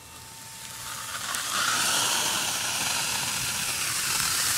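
Garden hose pistol nozzle spraying water onto a spent smoke bomb's candle-wax casing on a paving stone: a steady hiss of spray that builds up over the first second or two.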